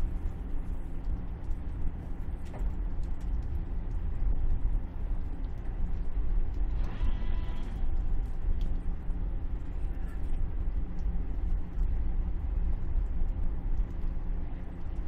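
Shrimp cutter's diesel engine running with a steady low drone, heard on deck. There is a single click about two and a half seconds in and a short hiss about seven seconds in.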